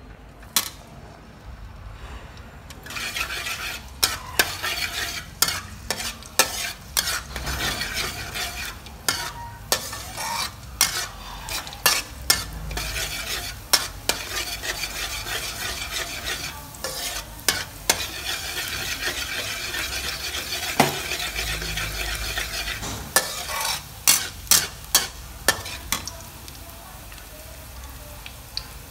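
Chopped garlic sizzling in hot oil in a steel wok, stirred with a metal wok spatula that clicks and scrapes against the pan. The sizzle starts a few seconds in, after the garlic goes into the oil, and eases off near the end, where the spatula strikes come thick and fast.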